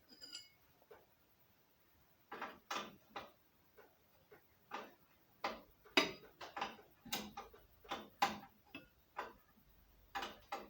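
Irregular small clicks and knocks from a replacement steel brake pipe and its flared end being worked into its union on a Land Rover 109. They come singly and in quick runs, a few a second at times, starting about two seconds in.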